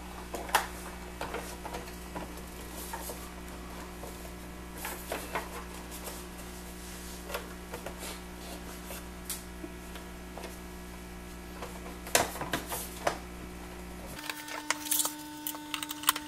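Scattered plastic clicks and knocks as the housing of a Numark PT01 Scratch portable turntable is handled and pressed back down over a bundle of wires, over a steady low hum. Near the end a screwdriver clicks against the screws in the case.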